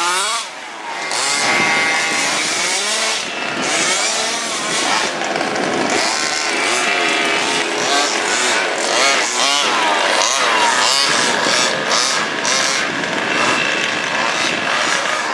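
Several petrol-powered RC race cars' small two-stroke engines revving up and down as they race around the track. Their pitches overlap, each rising and falling with the throttle.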